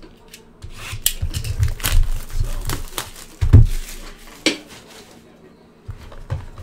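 A sealed cardboard hobby box of trading cards being handled on a table: scattered taps and knocks, with the heaviest thump about three and a half seconds in. Its plastic shrink wrap crinkles as it is torn off.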